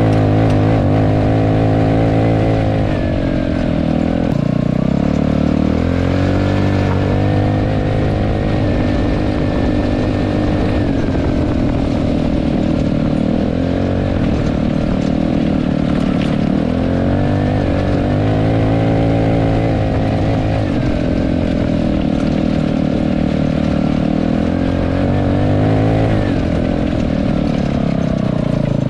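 Dazon Raider 150cc go-kart's single-cylinder engine under way, heard from on board. The revs climb, hold and drop back about five times as the kart is driven.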